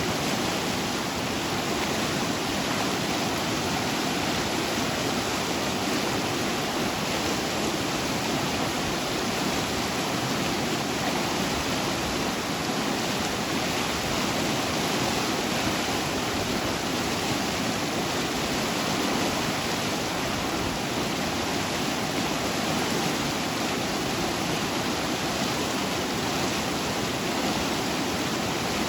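Rushing water: a steady, even hiss of flowing water with no single splashes standing out.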